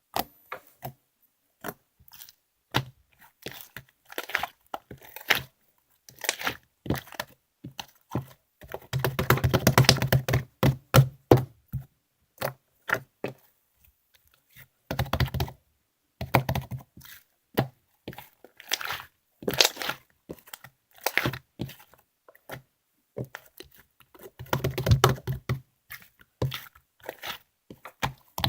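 Irregular taps, clicks and crinkling from objects being handled at close range, with longer rough, scraping stretches about a third of the way in, halfway through and near the end.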